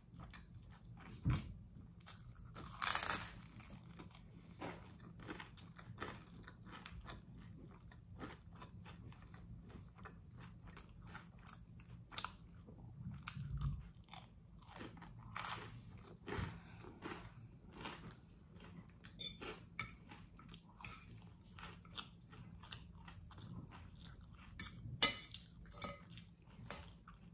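Close-miked eating of spaghetti and crusty garlic bread: chewing with wet mouth clicks and smacks and crunches of the toasted bread, in many short sounds through the whole stretch, a few of them louder.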